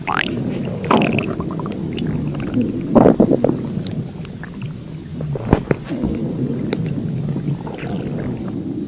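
A stomach growling: a steady low sound broken by short squeaks and sharp pops, loudest about three seconds in.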